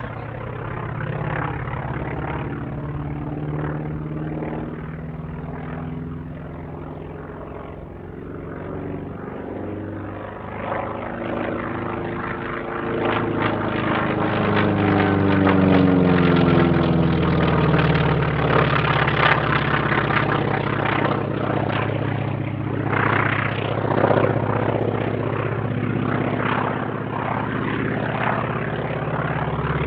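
North American T-28 Trojan's radial engine and propeller going by. The sound builds up about halfway through, its pitch sweeps down as the aircraft passes, and it then stays loud.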